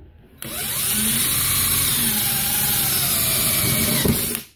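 DeWalt cordless drill spinning a tungsten carbide hole saw into stainless steel sheet: the motor runs loudly while the carbide teeth grind against the metal with a harsh, shifting squeal. It starts about half a second in and stops suddenly near the end.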